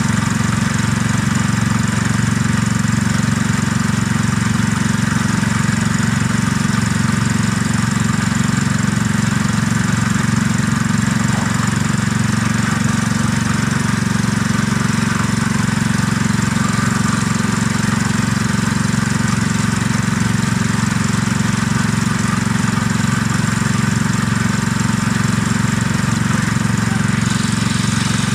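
Maxitrack Plymouth ride-on miniature locomotive running steadily along the track, a constant mechanical drone.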